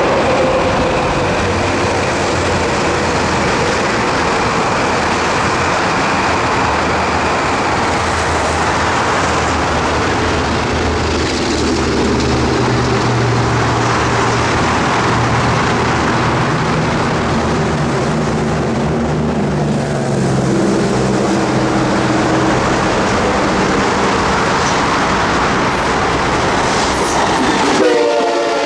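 Metro-North M8 electric multiple-unit cars rolling past, a steady rush of wheel and rail noise with a low motor hum. Near the end an Amtrak Acela passes at speed, and a train horn starts to sound in the last second.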